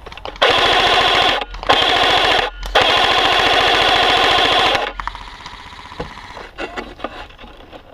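Airsoft rifle firing on full auto in three long, rapid bursts with short breaks between them, followed by quieter scattered clicks.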